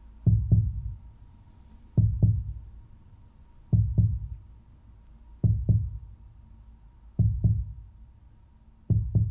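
Slow heartbeat: deep double thumps, lub-dub, six of them, about one every 1.7 seconds.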